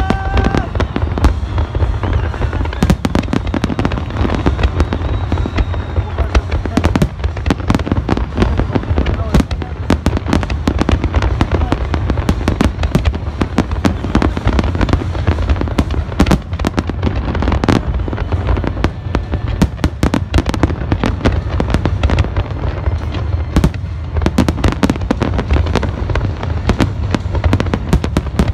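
A fireworks display: dense, rapid bangs and crackling of exploding shells with no pause, over a constant low rumble.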